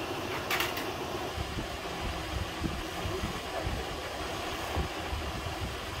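Steady hum of a workshop motor running, with a brief clatter of metal door handles on their steel tray about half a second in and low, irregular thumps after it.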